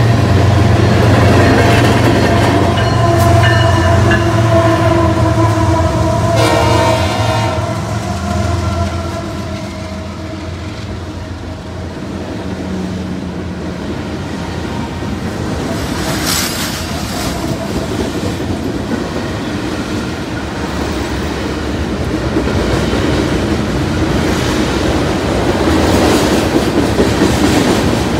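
A diesel freight locomotive's air horn sounds over the heavy rumble of its engines as the train approaches. The horn stops about eight seconds in. A long string of diesel locomotives then runs past, followed by freight cars rolling by with the clickety-clack of wheels on the rails.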